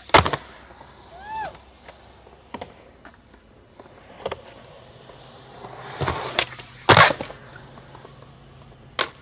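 Skateboard on concrete: a sharp pop and landing clack right at the start, wheels rolling, a rough stretch of rolling about six seconds in that ends in the loudest slam at seven, and another hard clack near the end. A short rising-and-falling tone sounds a little over a second in.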